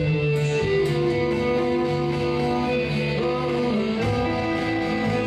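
A band playing live on electric guitars and bass guitar, with long held notes over a steady bass line.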